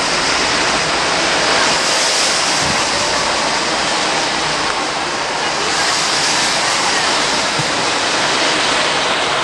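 Steady, loud rushing hiss with no distinct events.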